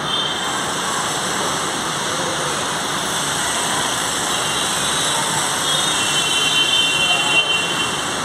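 Steady mechanical running noise of a moving escalator being ridden, with a faint high whine joining about six seconds in.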